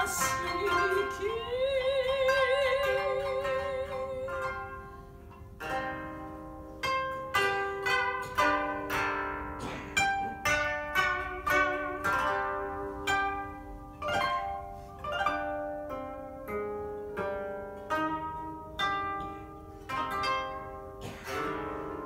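Two koto, Japanese long zithers, played as a duet. In the first few seconds a held note slides up in pitch and wavers. A steady run of plucked notes follows, about two a second, each ringing and dying away.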